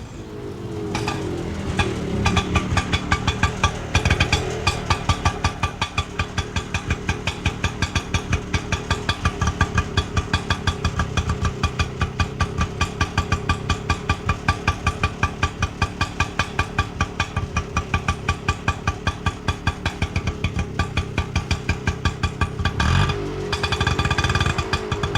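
Indian auto rickshaw's small engine running and picking up over the first couple of seconds, then going on with an even, pulsing beat of about four pulses a second. Near the end it briefly drops and then builds up again.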